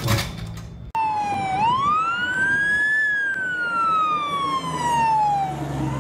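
Fire engine siren wailing: it starts about a second in, sweeps up in pitch, falls slowly, then begins to rise again near the end, over a low rumble.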